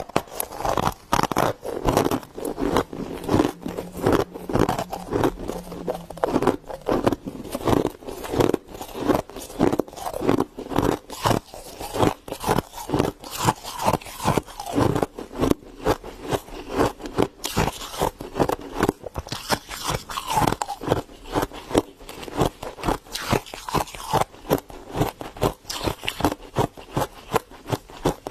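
Soft freezer frost crunched and scraped close to the microphone: a continuous run of quick crunches, several a second.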